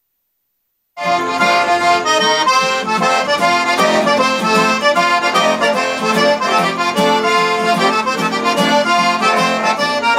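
Accordion-led background music that cuts in abruptly about a second in, after dead silence.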